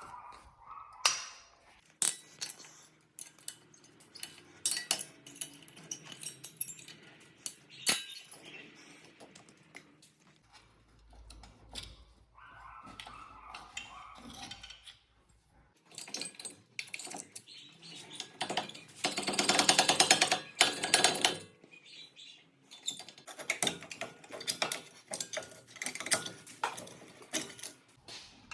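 Metal clicks, clinks and scraping of hand work on a car's disc brake: the pad retaining spring and the worn brake pads being pried and worked out of the caliper. A longer stretch of dense scraping comes about two-thirds of the way through.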